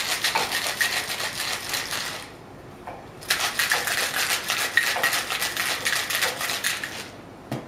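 Ice rattling hard inside a metal cocktail shaker as it is shaken vigorously, in a quick, even rhythm. The shaking pauses for about a second a little after two seconds in, then starts again and stops near the end.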